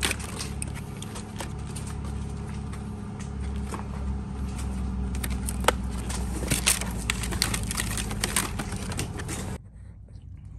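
Plastic berry clamshell containers clicking and rattling as they are handled, over a steady low mechanical hum. The hum and clicking cut off sharply about nine and a half seconds in.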